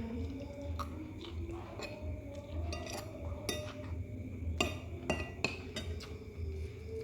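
Metal spoon clinking and scraping against a plate, about eight sharp ringing clinks, the loudest cluster in the middle and latter half, as fried rice is scooped up to eat.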